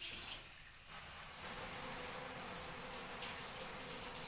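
Shower water spraying steadily; the spray swells up about a second in and then runs on evenly.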